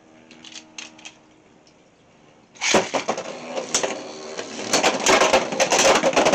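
Beyblade X spinning tops launched into a plastic stadium about two and a half seconds in, then spinning, scraping and clashing, with many sharp clicks and clatters.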